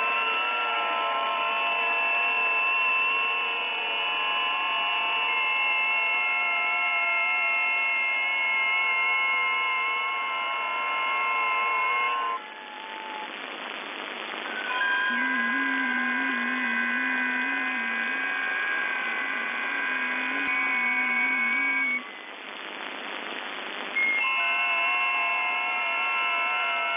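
FT8 digital-mode signals received on the 10-metre amateur band through an SDR receiver in upper sideband: a cluster of steady tones, each stepping slightly in pitch, over receiver hiss. The tones cut off at about 12 seconds, leaving only hiss, start again about 15 seconds in, drop out near 22 seconds, and return about two seconds later.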